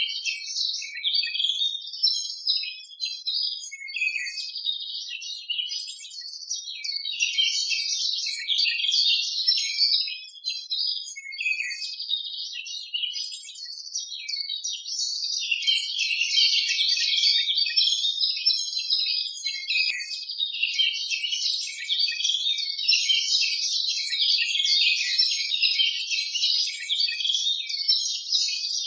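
Many small birds twittering in a dense, unbroken chorus of quick high chirps.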